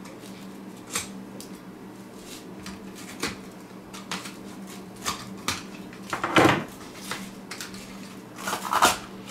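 Scattered clicks, knocks and scrapes of hands and a small metal tool working at a blown speaker driver's cone and spider to free it from the frame, with louder scraping about six seconds in and again near the end, over a faint steady hum.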